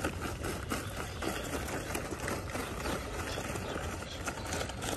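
Lumps of charcoal pouring from a paper bag into a metal chimney starter: a steady clatter of many small pieces.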